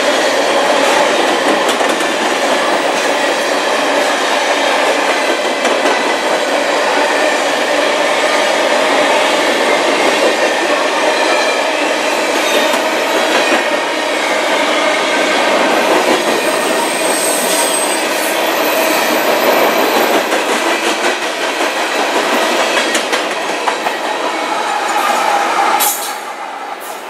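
Covered hopper cars of a CN potash freight train rolling past close by: a steady, loud rumble and rattle of steel wheels on the rails, with faint high wheel squeals about two-thirds of the way through. The noise drops off suddenly near the end as the train's tail passes.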